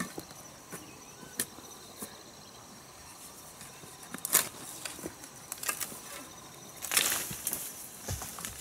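Insects chirring steadily in the background, with scattered sharp knocks and scrapes, the loudest about halfway through and a busier run of them near the end.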